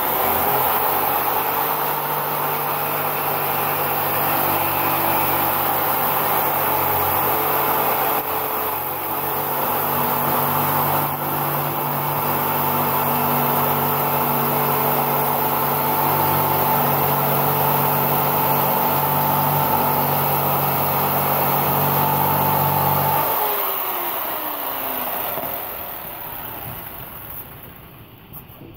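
Electric jigsaw running steadily as its blade cuts through a thick block of blue foam. It is switched off about 23 seconds in and winds down, its pitch falling as it fades.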